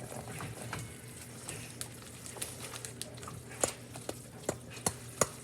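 Scattered light clicks and taps of a utensil scooping soft cream cheese out of its container, a few each second and louder near the end, over a faint steady low hum.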